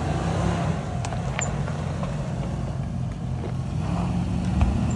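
Off-road SUV engine running steadily at low revs while crawling over rocks, the revs rising a little near the end. A few faint clicks and one low thump near the end.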